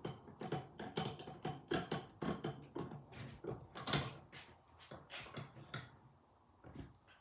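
Fuller 4.5-inch bench vise being worked open and closed by its handle: a run of quick metal clicks and clacks, two or three a second, with one sharp, louder clack about four seconds in, tapering off near the end. The jaw runs easily and smoothly, with the powder coat already scraped off where it rubs.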